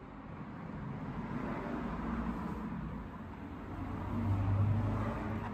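Triumph Speed Triple 1050 S's three-cylinder engine running through aftermarket SC racing exhausts, a steady low rumble that swells to its loudest about four seconds in.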